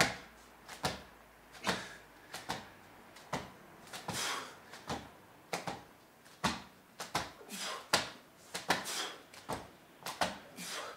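Two people breathing hard through a set of push-ups, with short breathy exhales every second or two among irregular small clicks and taps.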